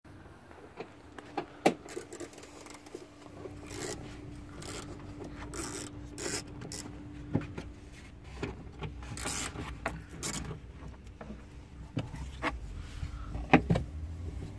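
Rubbing and scraping with scattered sharp knocks, the handling noise of a hand and a phone moving against the plastic boot trim and panels of a car. A faint steady hum runs underneath and drops out about ten seconds in.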